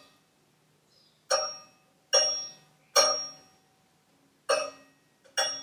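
Five sharp metallic pings, roughly a second apart, each ringing out briefly, from the blade and blade-tension clamp of a Makita SJ401 scroll saw as the blade tension is set.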